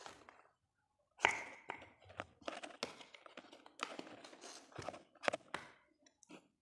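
Irregular clicks and knocks of hard plastic as a desk fan is reassembled: the blade pushed onto the motor shaft and the plastic guard handled, the loudest knock about a second in.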